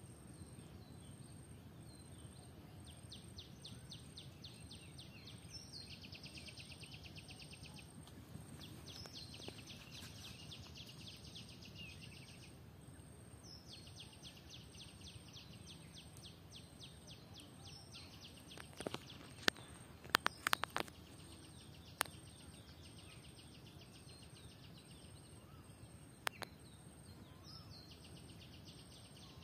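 Faint outdoor ambience with a steady low rumble, broken several times by bursts of a high, rapid trill lasting a few seconds each. A handful of sharp clicks come about two-thirds of the way through and are the loudest sounds.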